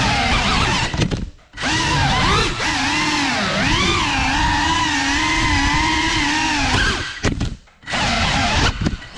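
GEPRC 35 cinewhoop quadcopter's motors and propellers whining, the pitch rising and falling with the throttle. The sound drops away sharply about a second in and again after about seven seconds, where the throttle is cut.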